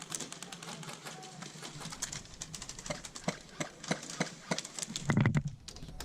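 Airsoft guns firing in a skirmish: scattered sharp clicks and pops of shots, then a louder, quick burst of shots about five seconds in.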